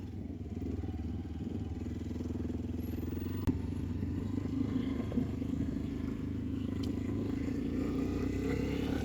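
Motorcycle engine running steadily, with a single sharp click about three and a half seconds in.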